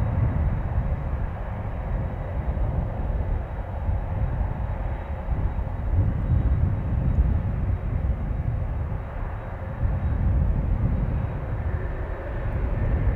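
Boeing 767 jet engines running steadily at idle, heard at a distance as a continuous low rumble with a hiss above it and a faint steady whine.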